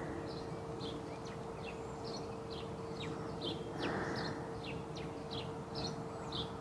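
Small birds chirping: short, high, downward-sliding notes repeated a few times a second, over a steady low hum. A brief scraping rustle comes about four seconds in.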